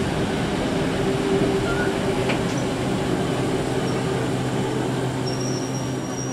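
DR class 52 steam locomotive rolling slowly past close by, a steady rumble and hiss. A thin high squeal comes in about five seconds in.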